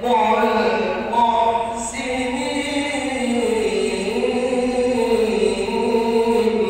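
A male reciter chanting the Quran in Arabic in the melodic tajweed style. He draws out long, slowly gliding phrases with no instruments.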